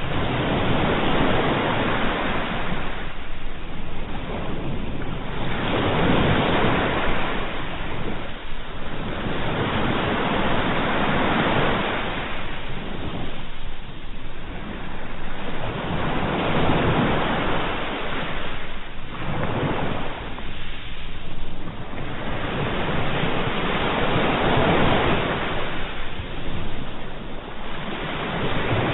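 Sea waves breaking and washing ashore, the surf swelling and falling back in a slow rhythm, about one wave every four to five seconds.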